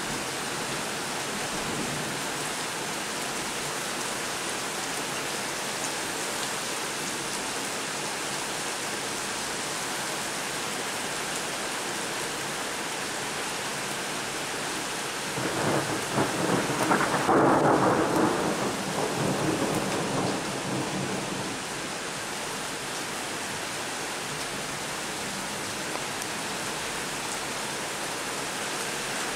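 Heavy rain pouring onto a flooded street, a steady hiss. About halfway through, a roll of thunder rumbles up, peaks and fades away over several seconds.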